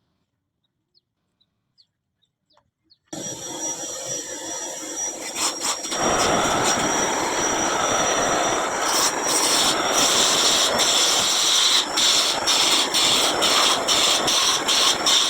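A small power tool working on wood: it starts suddenly about three seconds in with a thin steady whine over a rough hiss, grows fuller a few seconds later, then breaks off briefly many times in the last few seconds.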